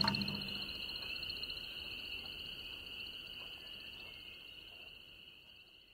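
A continuous high-pitched insect trill that fades out slowly.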